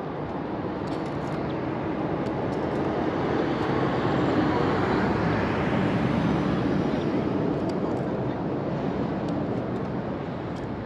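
Engine noise of something passing at a distance, a steady rushing drone with a low hum in it, swelling to its loudest about halfway through and then slowly fading.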